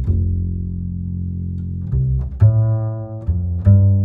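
Background music of deep string notes, bowed and plucked, with the note changing every second or so and light clicks between notes.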